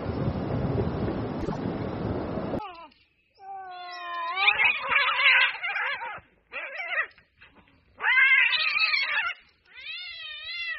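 Cats yowling in a fight: long, drawn-out wailing caterwauls that waver up and down in pitch, coming in several bouts with short pauses between. Before them, for the first two seconds or so, a steady rushing noise cuts off abruptly.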